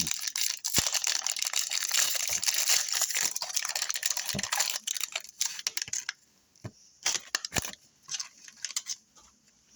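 Trading card pack's foil wrapper crinkling and tearing for about six seconds, then a few light clicks and snaps from handling the cards.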